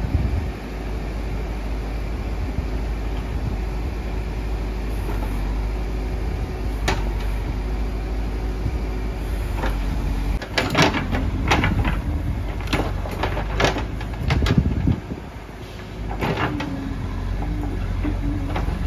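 Terex TLB 740S backhoe loader's diesel engine running steadily, with a single knock about seven seconds in and a run of sharp clanks and knocks from about ten to fifteen seconds in as the bucket dumps earth into the steel bed of a tipper truck.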